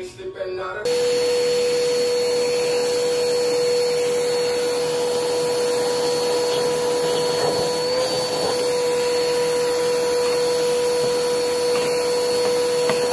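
Vacuum cleaner switched on about a second in and running steadily with a constant whine, its hose sucking debris out of a riding mower engine's air filter housing.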